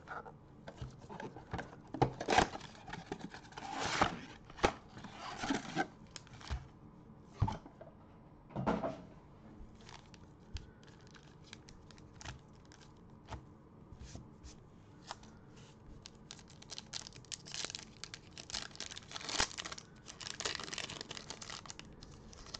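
Plastic shrink-wrap being torn off a cardboard trading-card box and crumpled, with the box and its foil card packs handled. Irregular bursts of tearing and crinkling, busiest in the first few seconds and again near the end.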